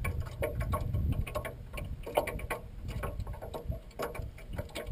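Scattered light clicks and knocks over a low rumble, from fishing tackle and a fish being handled in a small aluminum boat.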